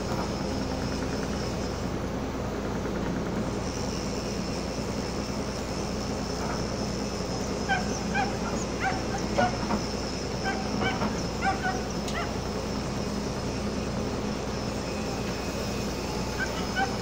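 Steady low drone of the ship's engine with a thin high whine over it. From about six to twelve seconds in comes a run of short, sharp animal calls, a dozen or so.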